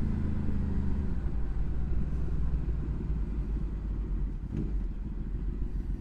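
Honda VFR's V4 engine running under way, with heavy wind rumble on the microphone. Its steady note fades under the rumble after about a second as the bike eases off behind traffic.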